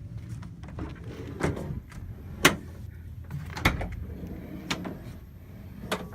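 About five sharp knocks and clatters spread over a few seconds, the loudest about two and a half seconds in, over a low steady rumble.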